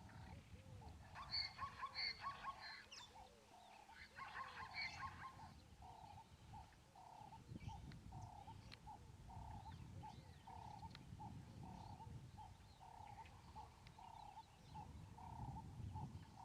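Faint outdoor animal calls: a short call repeating about one and a half times a second, with a few bird chirps in the first five seconds.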